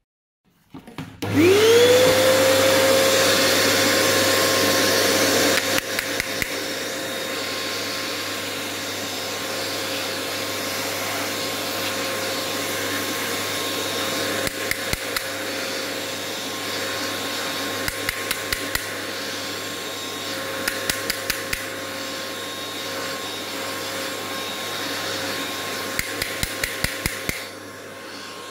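Vacuum cleaner with a crevice nozzle switched on about a second in, its motor spinning up with a rising whine and then running steadily as it sucks dust out of a robot vacuum's pleated HEPA filter; the motor note drops a little at about six seconds. Several quick runs of sharp tapping as the filter is knocked against the nozzle or counter.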